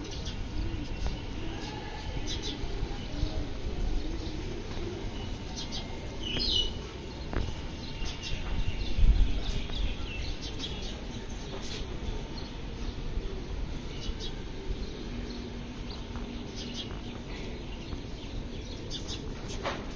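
Small birds chirping now and then, short high calls with one longer gliding call, over a steady low rumble of city background and wind on the microphone. A brief louder low rumble comes about nine seconds in.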